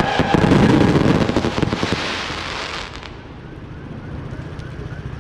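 Aerial fireworks bursting and crackling densely, fading out about three seconds in to a much quieter background.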